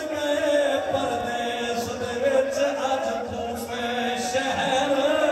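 A man's voice chanting a mournful masaib lament into a microphone, in long held, wavering notes.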